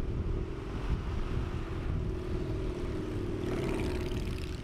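A motor vehicle passing with a steady engine note, over a low rumble of wind and traffic. A brief buzzier, higher sound rises about three and a half seconds in.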